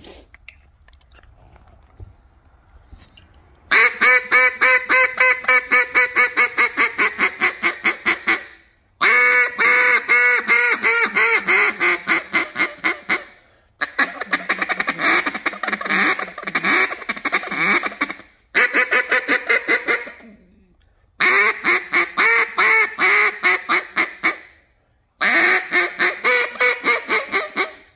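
J-frame single-reed duck call blown in six runs of rapid quacking notes, each run a few seconds long with short breaks between them. This is a test-blow of a freshly trimmed reed, which the caller judges still just a hair too long.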